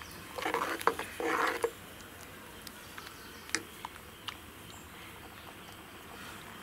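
Steel ladle stirring thick moong dal with coconut in an aluminium pressure-cooker pot: two short stirring strokes within the first two seconds, then a few light clicks of the ladle against the pot.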